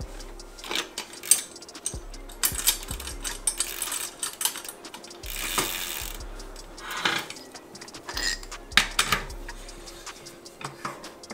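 BMX drivetrain turned by hand: chain clicking and rattling over a newly fitted sprocket, with runs of fast ratchet clicking from the rear hub. The chain is being checked for tightening and slackening through a turn of the sprocket.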